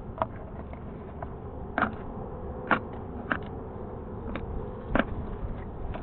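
Several sharp metallic clicks and clinks, about five spread over a few seconds, over a steady low hum, as of hand tools working on engine parts.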